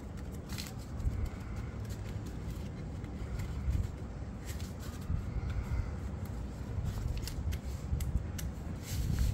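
A sheet of paper being folded and creased by hand: scattered short crinkles and rustles over a steady low rumble.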